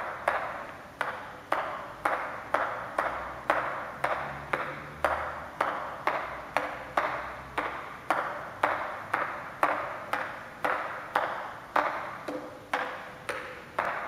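Table tennis ball bounced repeatedly on a paddle, about two light taps a second, struck alternately on the red and black rubber faces.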